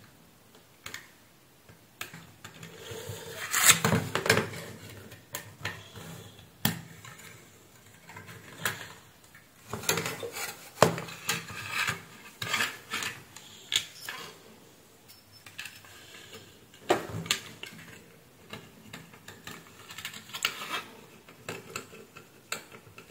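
Metal tweezers and a pointed tool clicking and scraping against the pins of a desoldered through-hole IC and the circuit board, irregular small taps and scrapes as the freed pins are checked and the chip is pried at its edge.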